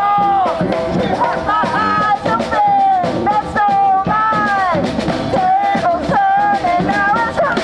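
Street brass band playing an upbeat tune: horn lines whose notes often slide down at the ends, over a steady drum beat.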